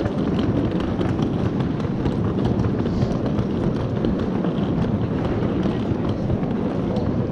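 Street ambience on a busy pedestrian shopping street: footsteps on paving stones over a steady low rumble, with faint light ticks throughout.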